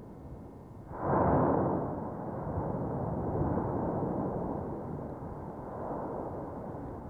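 Mount Etna erupting: a steady rumble, then about a second in a sudden loud explosive blast that rumbles on and slowly fades.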